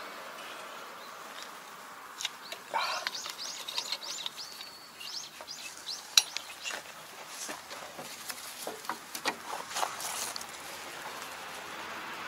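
Scattered light metallic clinks and knocks from a gloved hand handling the gearbox and linkage of a Kobashi rotary tiller; the sharpest click comes about six seconds in. Birds chirp in the background.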